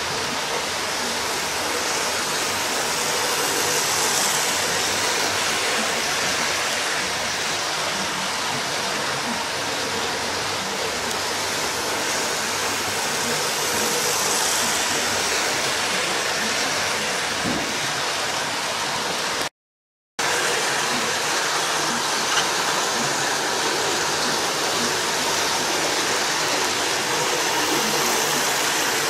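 Hornby Intercity 125 model train running round the track, a steady whirr and rumble of its motor and wheels on the rails that swells as it passes close, about 4 and 14 seconds in. The sound cuts out briefly about two-thirds of the way through.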